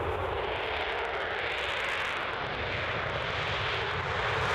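An F-15 fighter's twin jet engines at full afterburner during the takeoff roll and lift-off: a steady, loud rushing jet noise.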